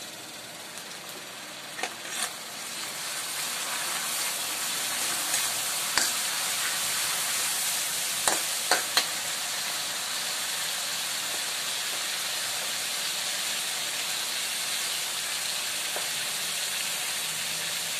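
Onions, garlic and ginger frying in oil in a metal wok with fish sauce just poured in, sizzling steadily and growing louder about three seconds in. A metal spatula clicks against the wok a few times in the first half.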